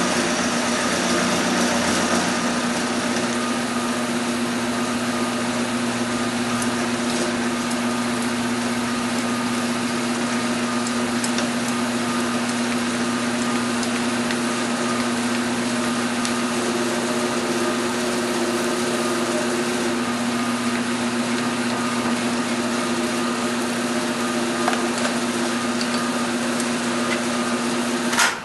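Milling machine running steadily, its end mill cutting a flat onto the side of a threaded nut blank to form a hex: an even machining hum with a constant whine and a few faint ticks. It cuts off suddenly at the very end.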